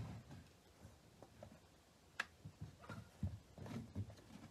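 Faint scattered clicks and soft knocks of hands handling a Benjamin Bulldog air rifle's plastic stock while working its rubber butt pad on, with one sharper click about two seconds in and a few low knocks near the end.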